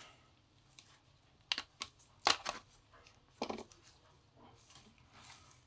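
Back housing of a Vivo Y53 phone being pried off its frame by hand: a handful of short, sharp clicks and snaps, the loudest a little past two seconds in, with soft handling noise between them.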